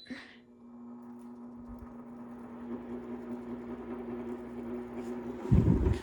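Sharper Image box fan switched on and starting up: a steady motor hum, with air noise building as the blades come up to speed, running in a way that doesn't sound great. Near the end there is a brief loud low rumble.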